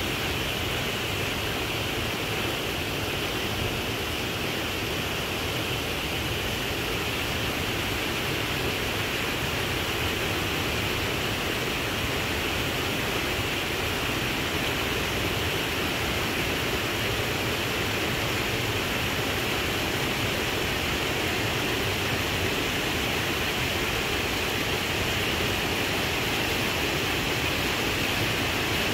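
Steady rush of running water from a rocky stream.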